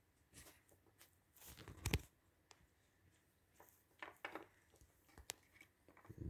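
Small clicks and scrapes of a plastic wiring-loom connector and a thin terminal-release tool being handled, with a sharper knock about two seconds in and a few lighter clicks later.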